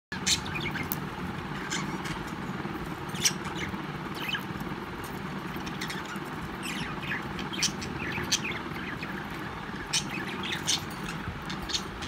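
Budgerigars feeding at a bowl of sprouted seeds, with scattered short, high chirps and small pecking clicks over a steady low background hum.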